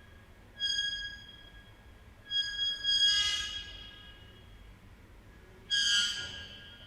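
Metal scraped across ceramic tile, giving three high-pitched, squealing screeches. The second is the longest, with a grating scrape in the middle of it, and the third comes near the end.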